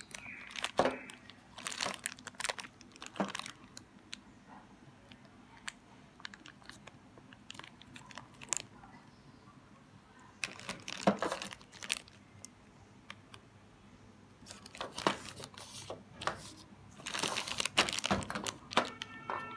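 Clear plastic zip-lock bags of small metal sewing machine parts crinkling in irregular bursts as they are picked up and handled, with a few sharp clicks.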